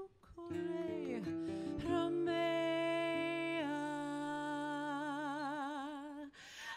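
A live gypsy-jazz band with female vocals, violin, acoustic guitar, accordion and upright bass. A few pitches slide downward early on, then long notes are held with a wide vibrato.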